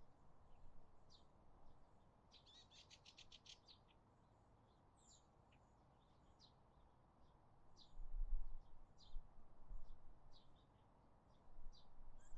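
Small songbirds chirping with short, high notes, one giving a fast trill of about ten notes a couple of seconds in. A low rumble comes and goes in the second half.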